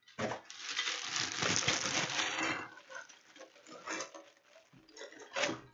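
Packing material in a mailed box rustling and crinkling as it is dug through by hand, dense for the first two and a half seconds, then a few short, softer rustles.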